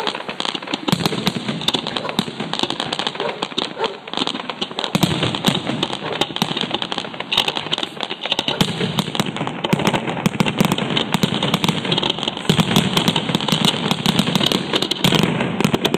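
Fireworks display: dense, rapid crackling and popping, many small bangs a second without a break, growing a little denser and louder about halfway through.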